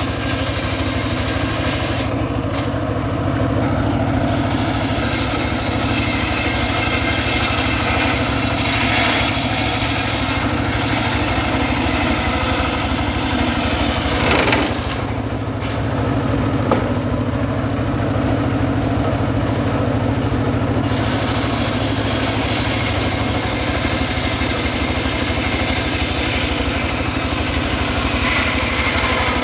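Homemade engine-driven circular sawmill running steadily while its large blade rips sengon logs into beams. The engine drones low under a high hiss of cutting, and the hiss drops away for a couple of short stretches.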